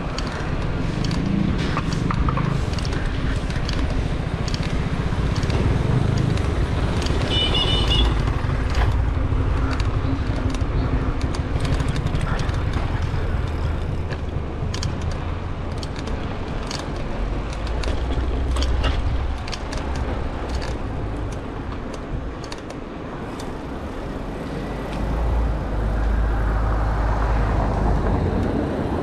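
City road traffic: motor vehicles passing with a steady low rumble and scattered clicks, and a brief high-pitched tone about seven seconds in.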